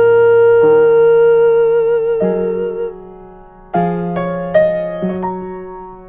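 Slow solo piano music. A long held chord dies away over the first half, then single notes and chords are struck about half a second apart.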